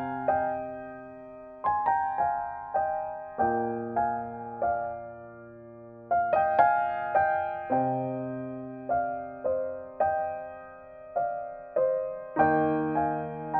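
Slow, gentle solo piano music: single melody notes struck one after another and left to ring out over held low chords.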